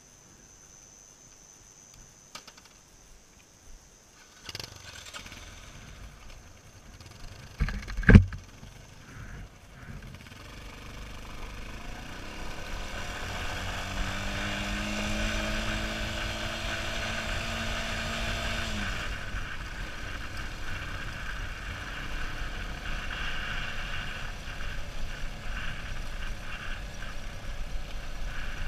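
Motorcycles starting up and riding off along a gravel road, with a loud sharp thump about eight seconds in. Engine and riding noise then build up, with a steady engine note held for several seconds near the middle before it drops away into steady riding noise.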